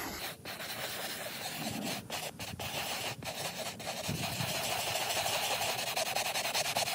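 Stiff-bristled plastic scrub brush scrubbing gritty Bar Keepers Friend cleanser into vinyl boat seat upholstery, a rasping rub. A few light clicks come in the first half, then the scrubbing settles into fast, even back-and-forth strokes that grow louder toward the end.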